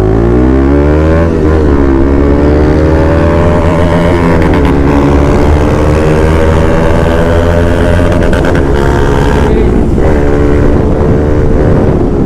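Yamaha R15 V4 motorcycle engine accelerating from a slow roll, its pitch climbing and dropping back at gear changes about one and a half and four and a half seconds in, then running at a fairly steady speed, with wind rushing past the helmet camera.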